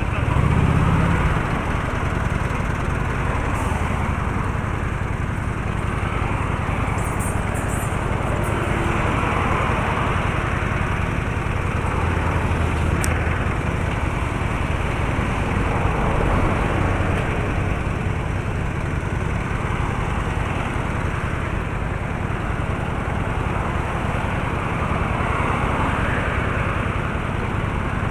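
Steady noise of a car driving in road traffic: engine and tyre noise running evenly without a break.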